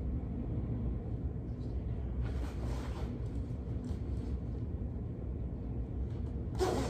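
Steady low hum of room background, with faint rustling of a child's puffy winter coat as it is pulled on and done up, once a couple of seconds in and again near the end.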